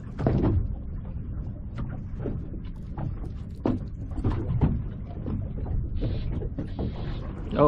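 Irregular clicks and knocks of a fishing rod and reel being handled while a fish is reeled in, over a steady low rumble.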